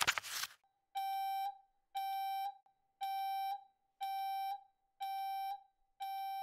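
Electronic beeper sounding a single steady tone, about half a second on and half a second off, six beeps in a row. A brief rushing noise fades out just before the first beep.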